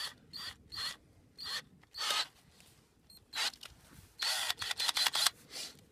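Handling of a drill and its drill bit: short scraping clicks in irregular groups, with a cluster of them near the end. No motor is running.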